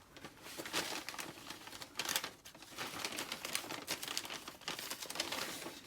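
Irregular crinkling and rustling of a collecting bag being rummaged through as the gathered nature items are handled.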